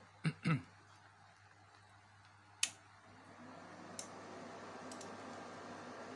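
Power switch of a home-built power amplifier clicked on: a few sharp clicks, the first pair with a low thump. A faint hum and hiss then rises slowly as the amplifier powers up.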